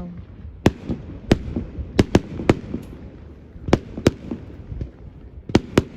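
Fireworks display: about ten sharp bangs of shells bursting at irregular intervals, some in quick pairs, over a steady low rumble.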